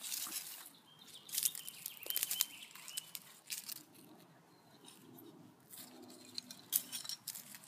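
Dry garden soil crunching and scraping in irregular bursts as a garlic plant is dug and pulled up by its roots. A bird chirps a few times about one to three seconds in.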